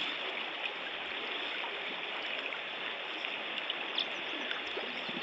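Steady rush of shallow river current flowing over a gravel bed, an even hiss of moving water with no break.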